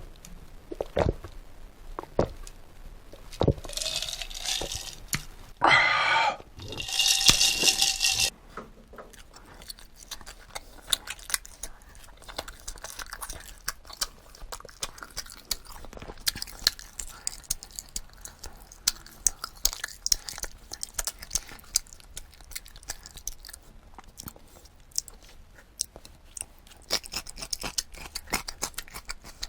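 A person eating close to the microphone: chewing with many small wet mouth clicks and crunches. A louder, noisier stretch comes about four to eight seconds in.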